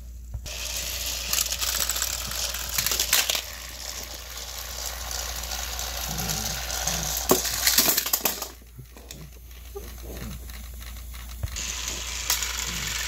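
Battery-powered Thomas & Friends toy engines running on plastic track: a whirring motor with a rattling clatter of wheels and couplings. The clatter drops away about eight seconds in and starts again near the end.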